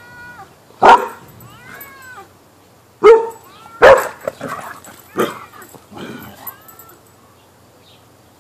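A dog barking at a cat: four loud, sharp barks spread over about five seconds, with high, arching whining calls in between.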